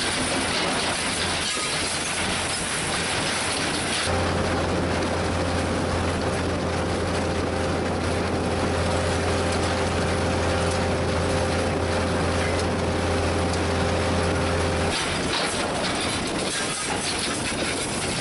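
Gipokombi RC 130 FDR mobile impact crushing and screening plant running under load: a steady clatter of the conveyors, vibrating screen and crushed rubble falling. From about four to fifteen seconds in, a steady low hum with a few higher steady tones sits over it.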